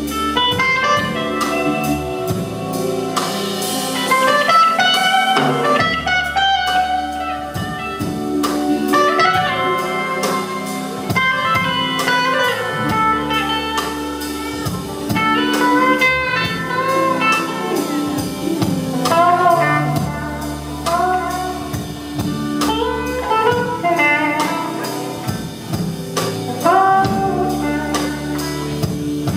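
Live blues-rock band playing instrumentally: an electric guitar solo of bending, gliding notes over a drum kit and bass.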